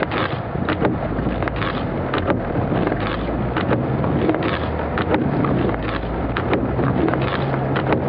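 Inside a Jeep's cab in a blizzard: wind and blowing snow hitting the vehicle, with many sharp ticks of snow striking the windshield. The engine runs underneath, a steady low hum from about halfway in.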